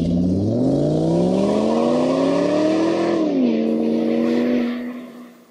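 An engine revving: a steady idle that climbs smoothly in pitch for about two and a half seconds, drops back, holds briefly, then fades out near the end.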